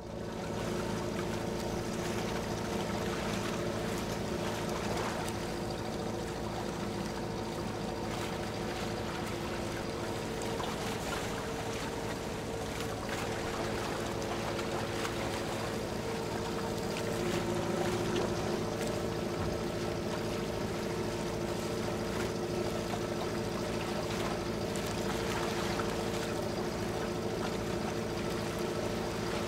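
A motorboat's engine running at a steady pitch, heard from on board, with the rush of water and wind as the boat moves.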